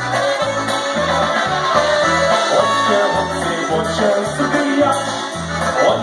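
Live polka band playing through a PA, the bass stepping out an even oom-pah beat of about two notes a second under the rest of the band.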